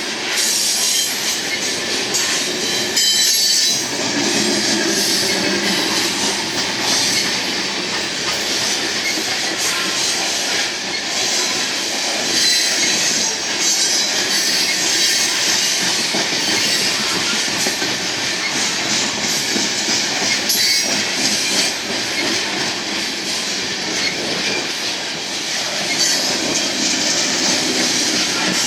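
Loaded coal train cars rolling past, their steel wheels squealing and clacking on the rails in a steady, continuous din.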